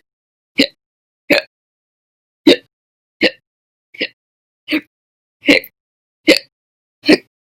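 A woman hiccuping in a steady run of nine short, sharp hiccups, about one every three-quarters of a second.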